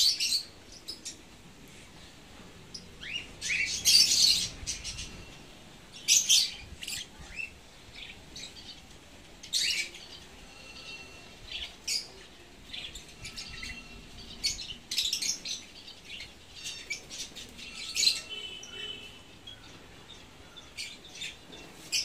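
A flock of African lovebirds in an aviary chirping: short, shrill calls from several birds, scattered at irregular intervals.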